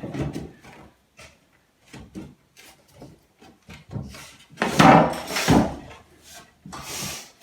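Wooden skirting board being handled and knocked: a few light taps, then a louder cluster of wooden knocks about five seconds in, and a short rustle near the end.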